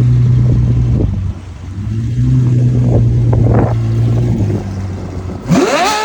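Ferrari engine running with a steady low drone that dips briefly about a second in, then a single sharp rev near the end that sweeps steeply up in pitch and falls away.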